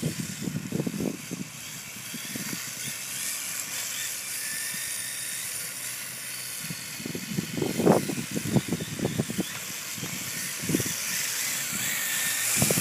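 Radio-controlled drift cars running on asphalt: a steady high whine and hiss of small motors and sliding tyres, with bursts of low rumbling about a second in and again around eight seconds in.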